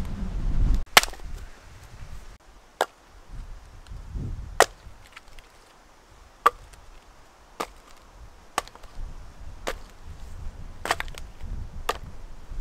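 Hatchet chopping and splitting short birch logs: about ten sharp chops, spaced roughly one to two seconds apart, with two strikes close together near the end.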